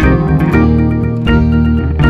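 Instrumental background music: held chords with plucked notes struck again and again.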